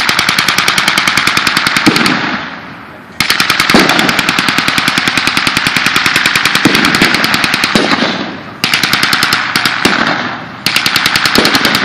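Machine gun firing blanks in rapid bursts, about four of them, the longest lasting some four seconds, each burst dying away in an echo.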